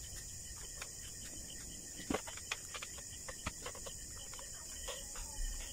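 Quiet eating sounds: scattered soft clicks and smacks of chewing and of fingers working rice and fish on plates.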